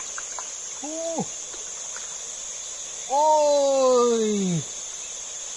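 A steady high-pitched drone of insects, with a man's wordless voice over it: a short "hm" about a second in, then a long "hmmm" that falls in pitch from about three seconds in.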